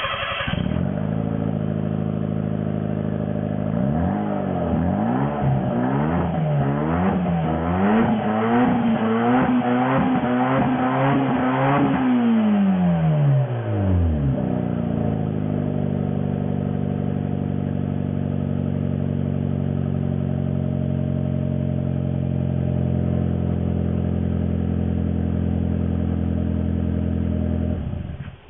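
Daihatsu Copen L880K's 660 cc turbocharged four-cylinder engine through a Fujitsubo Power Getter exhaust, idling steadily, then revved in a series of quick throttle blips for about eight seconds, dropping back to idle about halfway through. The sound begins abruptly and cuts off just before the end.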